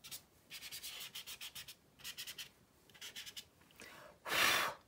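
A stick of dry soft pastel scratching across rough-textured toned paper in runs of quick, short strokes, with a louder single brushing rustle about four seconds in.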